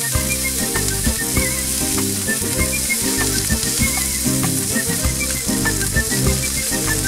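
Minced-meat burger patties sizzling in hot oil in a non-stick frying pan, with a slotted metal spatula now and then scraping and pressing against the pan, over background music with a steady beat.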